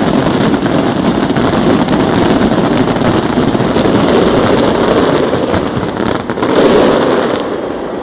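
Fireworks finale barrage: a dense, continuous rumble of overlapping bursts and crackles with a few sharper cracks, easing off near the end.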